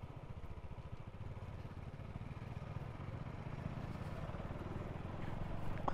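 Motorcycle engine running at low revs, a steady low pulsing that grows a little louder near the end.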